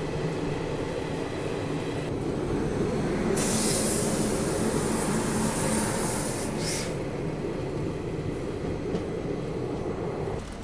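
Passenger train running on the rails, heard from an open coach door: a steady rumble of wheels on track, with a loud hissing rush for about three seconds in the middle.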